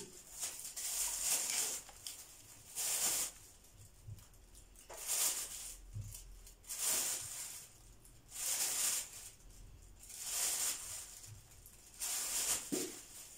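Thin plastic bag rustling and crinkling in short bursts, about every one to two seconds, as it is handled, held open and filled with orange slices.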